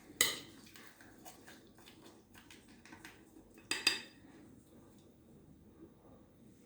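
Spoon clinking and scraping against a bowl of muesli: a sharp clink at the start, scattered light taps, and a louder clatter about four seconds in.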